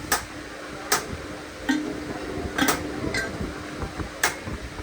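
Hammer blows on metal in a repair shop, about one a second, six sharp knocks in all, over a steady low hum.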